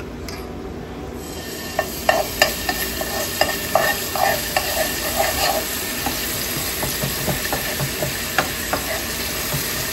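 Minced garlic sizzling in hot oil in a nonstick frying pan. The sizzle sets in about a second in, and a spoon scrapes and taps against the pan as the garlic is stirred.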